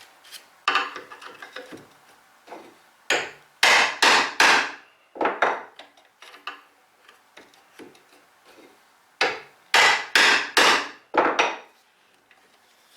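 Hammer striking a mortise chisel and driving it into soft pine: two quick runs of sharp blows, about four and then about five, with lighter knocks between them.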